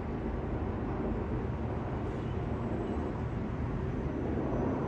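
Jet engines of a twin-engine widebody airliner, a Boeing 777-300ER, passing overhead: a steady low rumble.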